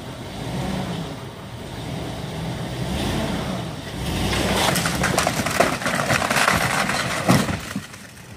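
A fire-damaged wooden wall and roof section being pulled down by rope: a low rumble, then from about four seconds in a long run of wood cracking, splintering and crashing as the section gives way and hits the ground, with the heaviest crashes near the end.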